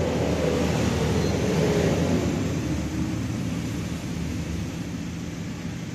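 A passing vehicle's engine, swelling in the first two seconds with a falling pitch and then fading, over a steady low hum.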